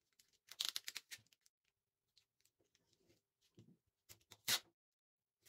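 Clear cellophane tape being pulled from its roll and pressed onto folded paper: a quick run of short scratchy noises about half a second in, a few faint ones after, and a louder one a little after four seconds.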